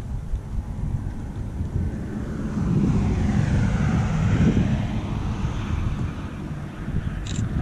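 Wind buffeting the microphone, with a broad rushing sound that swells and fades in the middle, and a short high click near the end.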